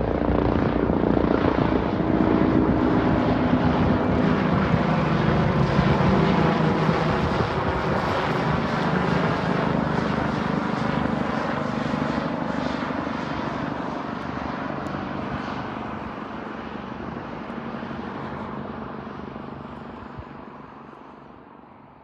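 Light helicopter flying past, with a steady rotor and engine noise that fades gradually away over the second half.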